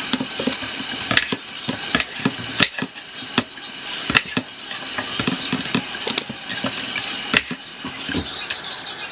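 Knife knocking on a cutting board while potatoes are cut up, with irregular sharp knocks about once or twice a second over a steady hiss.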